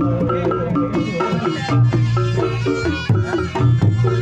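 A Reog Ponorogo gamelan ensemble playing: kendang drum strokes over a repeating pattern of short pitched gong notes, with a reedy slompret melody coming in about a second in.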